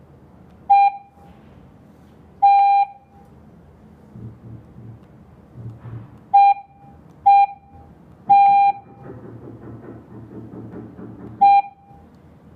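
G90B Wi-Fi/GSM alarm control panel beeping six times while a door sensor is being linked to it: a single-pitched beep, some short and two held longer, at uneven intervals.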